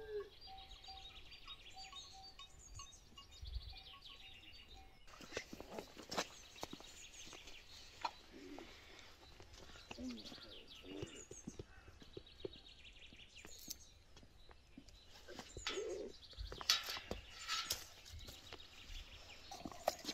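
Small birds chirping and singing. From about five seconds in, short rustles and knocks of handling close by join them as hands move through potted plants.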